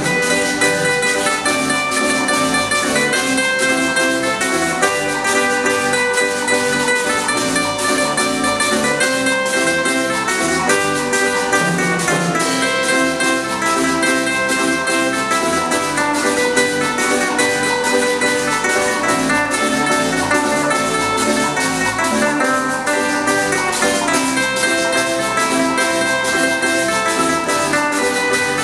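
A string band playing a joropo instrumental: a bright plucked-string melody over strummed guitars and cuatro and an electric bass, with a metal güira scraping and drums keeping the beat.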